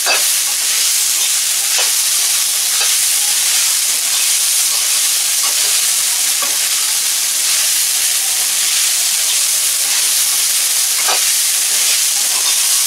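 Soaked poha (flattened rice) being stirred and fried in a metal kadhai: a steady sizzle, with the metal spatula scraping and knocking against the pan a few times.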